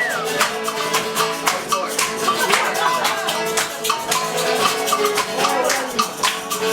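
A live band playing, with a quick, even shaker rhythm over plucked guitar.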